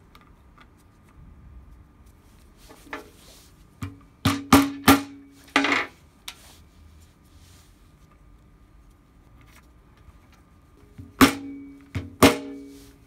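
Small hammer tapping through a leather pad onto the brass screws of a handsaw's wooden handle, setting them in place. Each tap sets the steel saw blade ringing briefly: four taps about four seconds in, then three more near the end.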